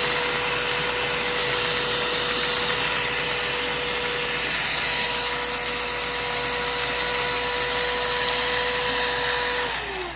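Shark UltraCyclone cordless handheld vacuum running steadily with a high motor whine while vacuuming up leftover cereal. Near the end it is switched off and the motor winds down, its pitch falling.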